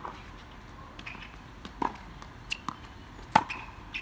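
Tennis balls being struck by rackets and bouncing on a hard court in a rally: a series of sharp, separate pocks, mostly in the second half, the loudest about three and a half seconds in.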